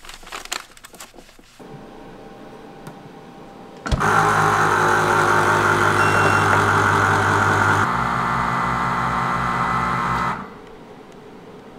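Made for Meat tabletop chamber vacuum sealer running a cycle: a few handling clicks as the bag is set in and the lid shut, then the vacuum pump starts suddenly about four seconds in and runs loud and steady with a pulsing low hum. It changes tone about eight seconds in and cuts back to a quieter hum after about ten seconds.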